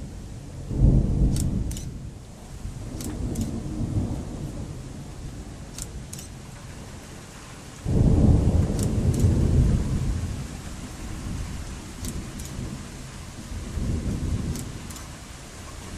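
Thunder rumbling over a steady hiss. A sudden rumble comes about a second in, and a louder, longer roll of thunder starts about halfway through and fades over several seconds. A few faint high ticks are scattered throughout.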